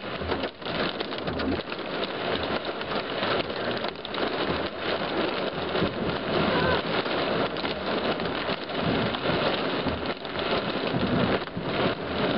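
Heavy rain and hail pelting the car's windshield and roof, heard from inside the car as a dense, constant patter.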